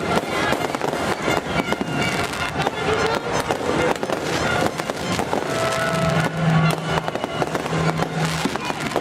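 Fireworks going off in rapid succession: a dense crackle of many overlapping bangs. In the second half a low steady tone sounds twice, about a second each.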